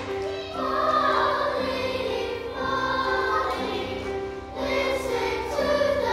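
Children's choir singing a song, with piano accompaniment holding steady notes beneath the voices.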